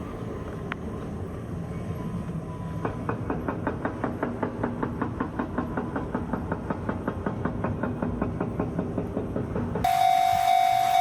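A train running past with a fast, even clicking of about four or five beats a second over a low rumble. About ten seconds in, a loud steady train whistle starts abruptly.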